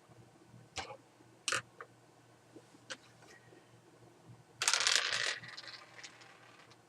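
A pencil clicking and tapping on a hard surface as a cat plays with it: three light clicks spread over the first three seconds, then a short scuffling rustle about two-thirds of the way in, followed by a few faint ticks.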